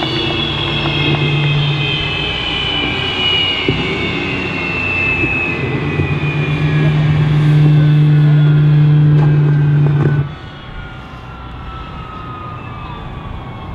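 F/A-18 Hornet jet engines on the ramp spooling down after shutdown: a turbine whine falling steadily in pitch. A deep steady hum drops away suddenly about ten seconds in, and the whole sound gets quieter.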